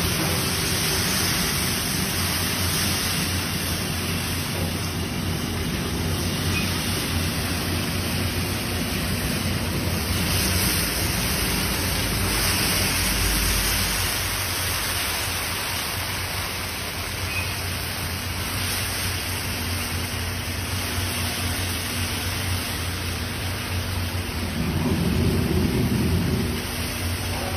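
Batter squeezed in thin streams into hot oil on a large griddle, sizzling and frothing in a steady dense hiss, with a low hum underneath.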